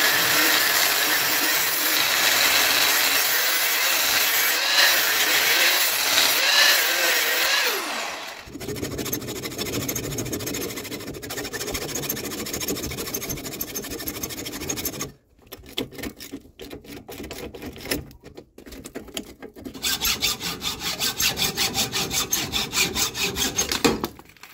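Thick steel exhaust pipe being cut. A tool runs steadily through the metal for about eight seconds and then winds down. After that come repeated sawing strokes with short pauses, turning quick and even near the end.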